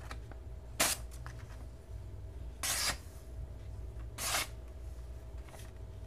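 Flipper knife's D2 steel blade slicing through sheets of plain printer paper in a sharpness test: three quick swishing cuts, about a second in, around three seconds and just past four seconds, the middle one the longest, with a fainter fourth near the end.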